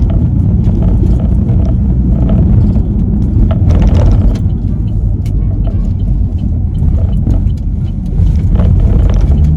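Steady low rumble of a car's engine and tyres heard from inside the cabin while driving, with a few light ticks and knocks.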